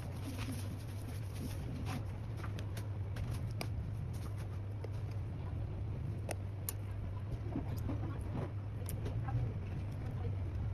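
Scattered light clicks and taps of small parts and tools being handled during a phone repair, over a steady low hum.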